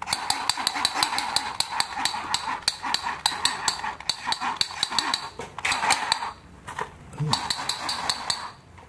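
Battery-powered toy pistol's electronic shooting sound effect: a fast rattle of clicks over a steady buzzing tone. It breaks off about six seconds in and starts again a moment later.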